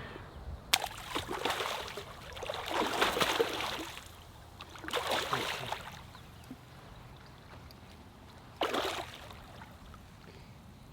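Water splashing in three bursts, the first opening with a sharp slap and running about three seconds, then two shorter ones: bass striking shiners at the water surface.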